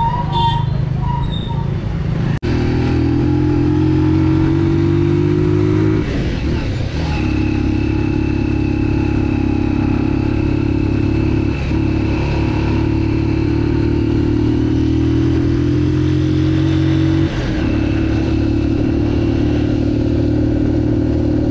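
A motor vehicle's engine running steadily while under way. Its pitch and level shift briefly about two seconds in, again around six to seven seconds in and near seventeen seconds, and a faint high whine runs from about seven seconds on.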